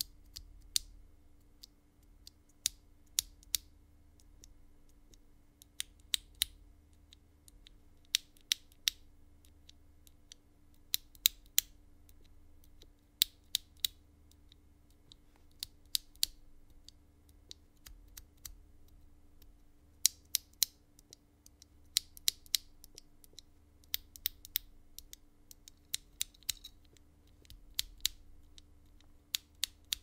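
Lubed linear mechanical keyboard switches, a Greetech Red and then an Aflion Iceberg Demon, pressed and released between the fingers: sharp plastic clicks, often in pairs, coming in short runs with gaps between. A faint steady hum lies underneath.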